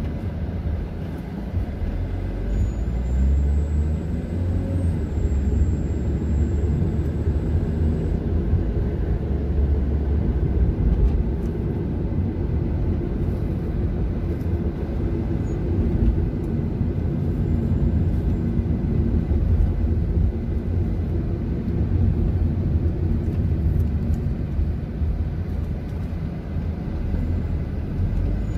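Car driving at low speed, heard from inside the cabin: a steady low rumble of engine and tyre noise. The engine note rises briefly a few seconds in.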